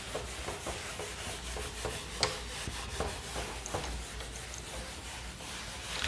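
A board eraser rubbing back and forth over a whiteboard, wiping it clean, with a short tap a little over two seconds in.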